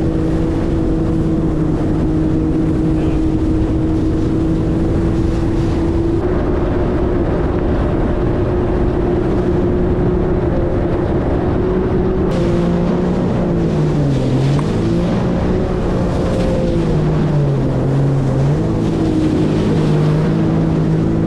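Yamaha WaveRunner VX Deluxe jet ski's engine running under way, with water and wind rushing. The engine holds a steady pitch, then drops and climbs back twice in the second half as the throttle is eased and opened again.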